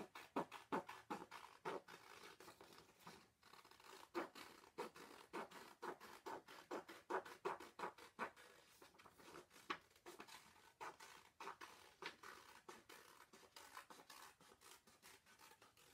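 Scissors cutting around a circle in a sheet of white paper: a faint, steady run of short snips, a few each second.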